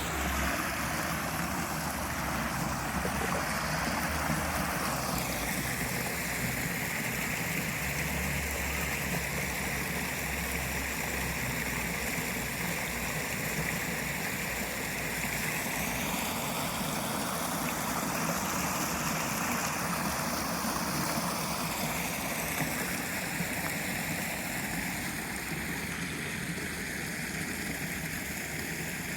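Water running and splashing in a shallow park stream channel, a steady rush whose tone changes a few times along the way.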